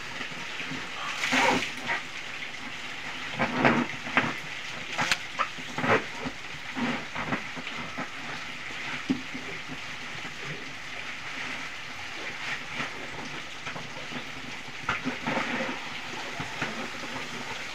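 Plastic bags of fish fry rustling and knocking as they are filled and handled, over a steady hiss. The knocks come irregularly, several in the first six seconds and a few more near the end.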